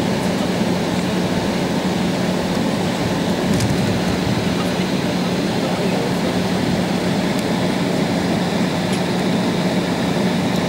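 Steady cabin noise inside an Embraer 190 taxiing on the ground, its turbofan engines running at idle: an even rushing hum with one low steady tone.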